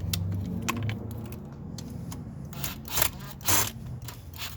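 Clicks and short metallic scrapes of M6 Allen-head bolts being fitted and turned back into the motor mount of a kids' electric ATV, with three louder scraping strokes in the second half.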